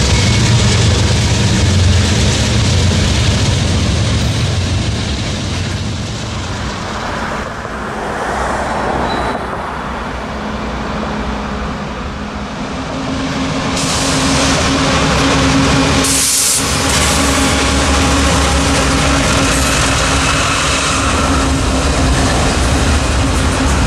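Loud steady noise of a double-stack intermodal freight train's cars rolling past on the rails, then, after a dip partway through, Norfolk Southern diesel locomotives leading another stack train by, with a steady engine hum under the noise of the wheels.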